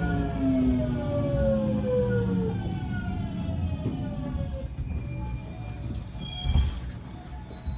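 JR West 207-series train's Toshiba GTO inverter whining in several tones that glide steadily down in pitch over rumbling running noise as the train brakes to a stop. A brief loud burst of noise comes near the end.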